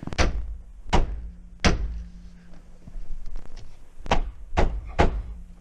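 Six hard thumps in two groups of three as a 1994 Mazda Miata's steering wheel is banged on to knock it loose from the steering column.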